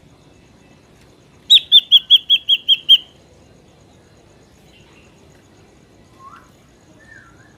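Drongo (srigunting) calling: a quick run of about eight loud, clipped, identical whistled notes, roughly five a second, then two faint short gliding notes near the end.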